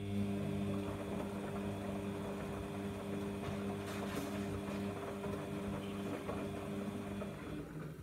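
Samsung washing machine on its heavy wash cycle: a motor hums steadily over the swish of the load and water, then stops near the end.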